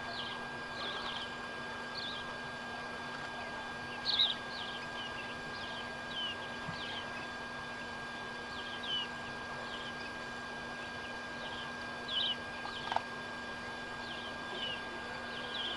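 Goslings peeping: short, high chirps that slide downward, one or two a second in irregular runs, a few louder ones among them.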